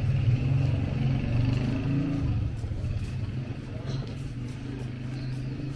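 A low, steady engine hum with faint voices of passers-by, the hum fading away near the end.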